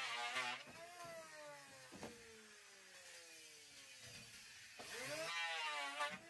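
Handheld electric power tool cutting, its motor whine sagging in pitch under load. Released, it winds down slowly with a steadily falling whine for about four seconds, then spins up and cuts again near the end.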